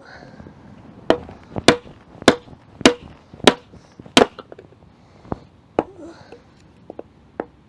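Hatchet splitting firewood into kindling on a wooden block: six sharp, evenly spaced chopping knocks about every half second, each with a short ring. A few lighter knocks follow.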